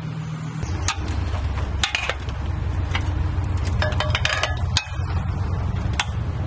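Scattered light metallic clinks and clicks as metal rigging hardware on a bowsprit is handled, a few with a short ring, over a steady low hum.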